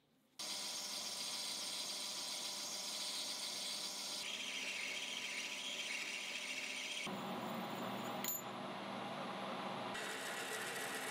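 Metal lathe running and cutting a bronze bar: a steady machining hiss that shifts in tone several times, with one sharp click about three-quarters of the way in. Near the end, a twist drill bores into the spinning bronze.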